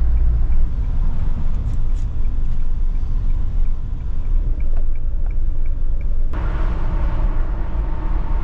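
Camper van driving, heard from inside the cab: a steady low rumble of engine and tyres on the road. About six seconds in it switches abruptly to a louder, brighter rush of road and wind noise.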